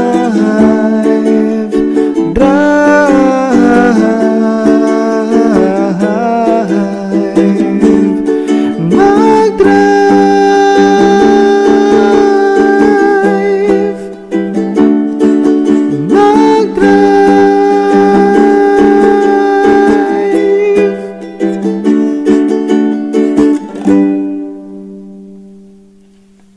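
Background song in a lyric break, with held melody notes over steady accompaniment; it stops near the end, leaving a last low note that dies away.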